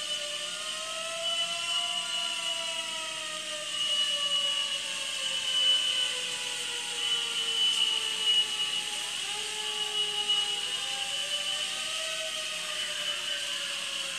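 Steady mechanical whine of disinfectant-spraying machinery on a fire truck, with several tones slowly drifting up and down in pitch as it runs.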